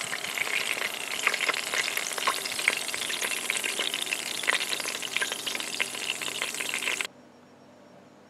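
Bacon strips frying in their rendered grease, a steady sizzle with many sharp crackles and pops. It stops abruptly about seven seconds in.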